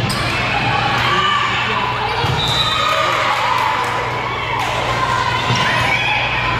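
Volleyball rally on a gym court: several sharp slaps of hands and forearms on the ball over steady overlapping chatter and calls from players and spectators.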